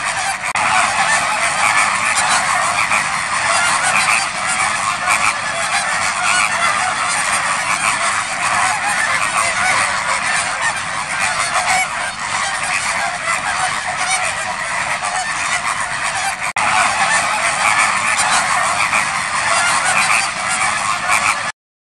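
A large flock of greater flamingos calling all at once, a dense, continuous honking chatter that cuts off suddenly near the end.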